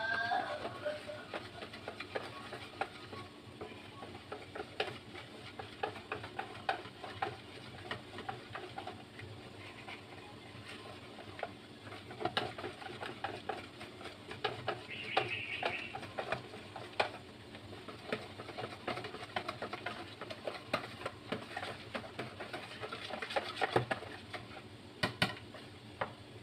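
Wire whisk beating a thin green pandan and coconut-milk puto batter in a plastic bowl: rapid irregular clicking and tapping of the wires against the bowl, over a steady low hum.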